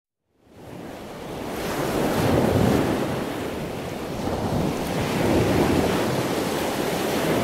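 Sea waves washing onto a shore, with wind: a steady rushing surf that fades in from silence over the first couple of seconds and then slowly swells and eases.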